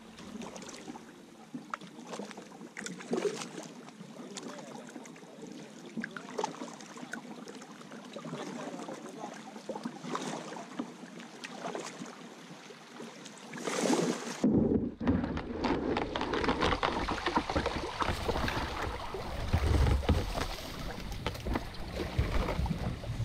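Paddling on a river: irregular paddle strokes and water lapping against the hull of a small paddled boat. About 14 seconds in the sound changes abruptly to a louder, steady rushing of water and wind.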